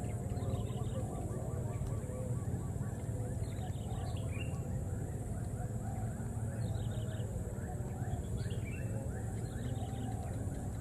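Short, high-pitched animal calls in quick runs of repeated notes, coming every few seconds over a steady low hum.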